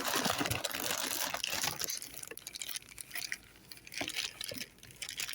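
Packaging being handled: rustling and crinkling, busiest in the first two seconds, then a few scattered clicks.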